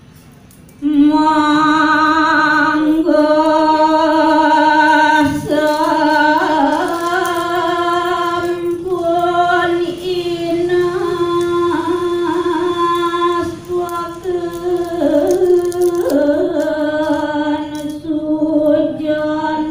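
A woman singing a verse of Old Javanese kakawin poetry unaccompanied. She holds long notes mostly on one steady pitch with wavering ornaments, starting about a second in and breaking off briefly a few times.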